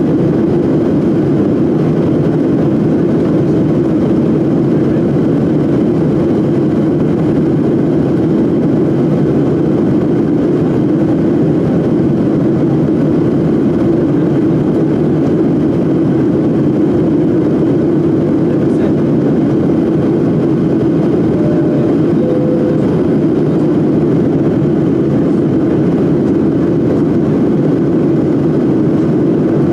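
Steady airliner cabin noise in flight: the engines and rushing air heard from inside the passenger cabin, an even low hum and hiss that does not change.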